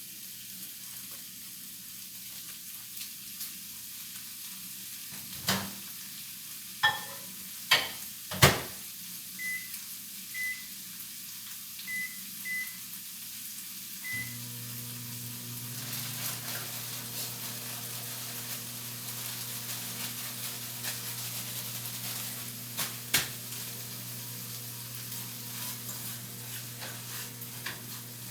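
Microwave oven being started: a few sharp knocks, then five short keypad beeps, after which the oven starts running with a steady low hum. A steady hiss sits under it throughout, and there is one more knock later on.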